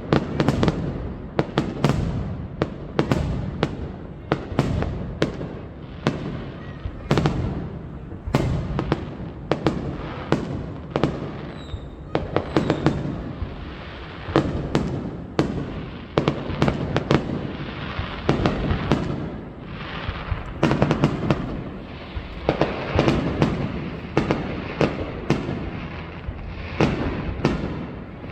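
High-altitude aerial fireworks shells bursting in quick succession, a loud bang one to two times a second. In the second half a crackling hiss from the bursting stars runs between the bangs.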